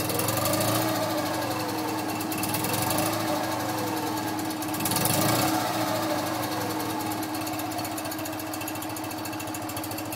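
1958 BMW R50's flat-twin engine running on the bench, freshly restored. It is revved three times in the first half, each rev rising and falling in pitch, then settles to a steady idle.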